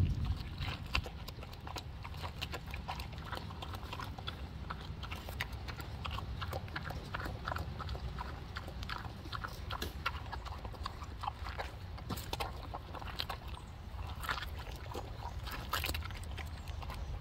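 A pig chewing and crunching a pineapple: rapid, irregular wet crunches over a steady low rumble.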